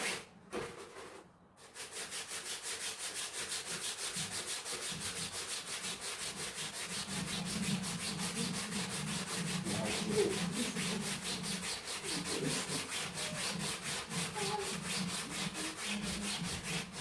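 Rapid, even back-and-forth scrubbing strokes, about five a second, starting about two seconds in and keeping a steady rhythm.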